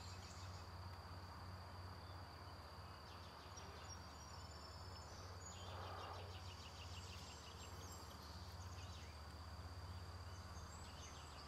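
Faint insect chorus in a summer forest: a steady high-pitched trill runs throughout, with bursts of rapid chirping over it, above a low steady hum.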